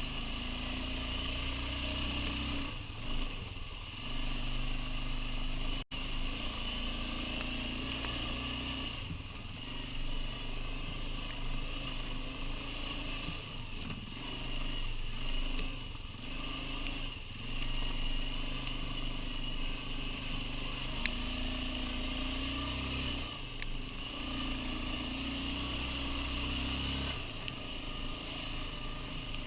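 ATV (quad bike) engine running under way, its note rising and falling with the throttle, over a steady high whine and low rumble.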